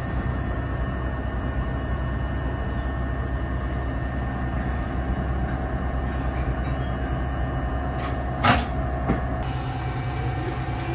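Eizan Electric Railway "Hiei" tourist railcar heard from inside the car as it rolls slowly into a station: a steady low running rumble with a thin, falling squeal from the wheels over the first three seconds. A single sharp knock comes about eight and a half seconds in.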